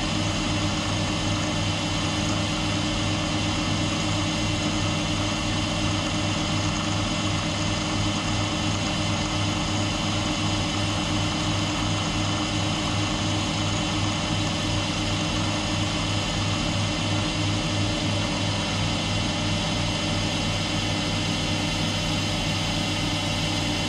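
Mill-drill running steadily with its end mill cutting a cam lobe on a rotary table: a constant motor and spindle hum with steady whining tones above it.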